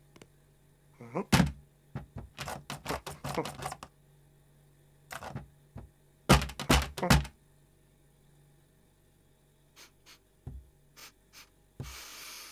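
Cartoon foley of a cat climbing about a kitchen: a thump, then a quick run of scrabbling clicks, then three loud thuds in quick succession. Later there are a few light taps, and a breathy noise near the end.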